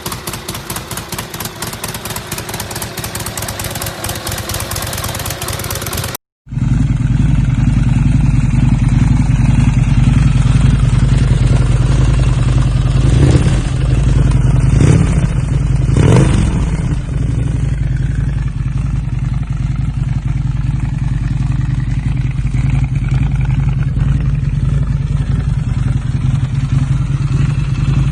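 Two motorcycle V-twin engines heard one after the other, with a sudden cut about six seconds in. The first runs with a rapid, even beat. The second is louder and deeper, idling with a few quick revs about halfway through.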